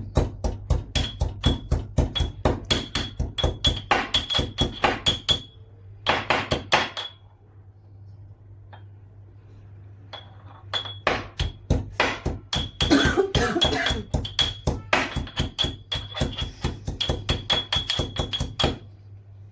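Fresh ginger being pounded with a pestle in a mortar: quick strikes about four a second, each with a metallic ping, stopping for a few seconds midway and then starting again.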